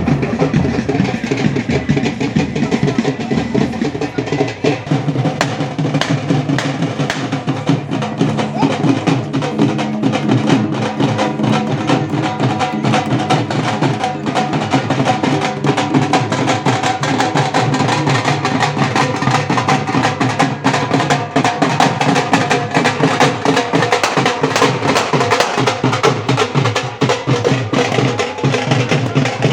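Fast, dense drumming with steady pitched music under it, going on without a break.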